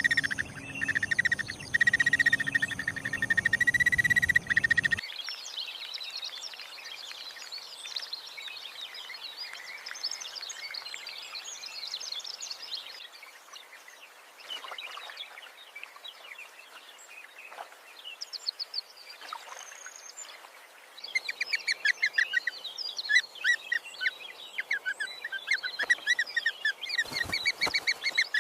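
A steady high-pitched trill for about five seconds that cuts off abruptly, then wild birds chirping and calling, with rapid, repeated chattering calls over the last several seconds.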